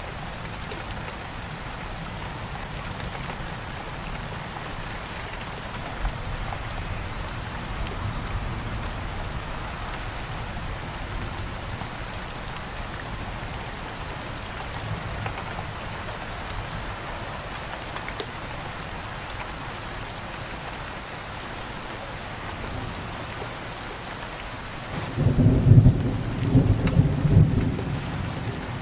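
Steady heavy rain on a window pane, a continuous even hiss. Near the end a loud, deep rumble rises and lasts about three seconds.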